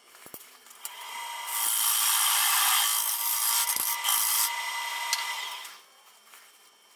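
Turning gouge cutting a spinning piece of green wood on a lathe. A hissing cut builds about a second in, runs for a few seconds and stops near the end, over a faint steady whine.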